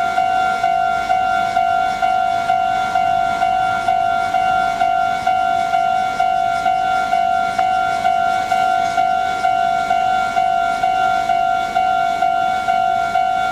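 Japanese railway level-crossing electronic warning bell ringing, a steady ding repeated a bit under twice a second.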